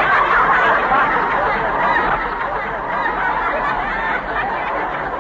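Studio audience laughing at length in a crowd, loudest at the start and slowly dying down.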